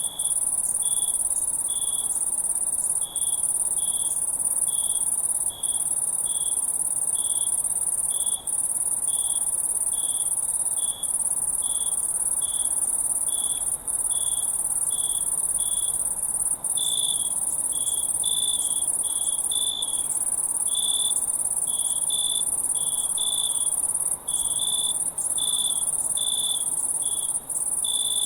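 Crickets chirping at night: a steady, high-pitched trill of many insects, with a nearer cricket chirping evenly about three times every two seconds. A little over halfway through, a second chirper joins, and the chirps turn faster and irregular.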